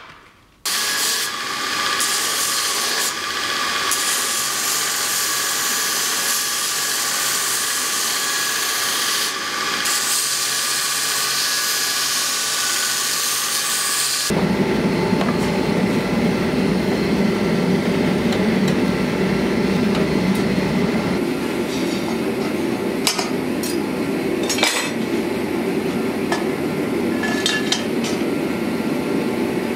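Belt grinder running and grinding steel: a steady hiss over a constant whine from the machine. About halfway through it stops abruptly and gives way to a steady, lower rushing noise with a few faint clicks.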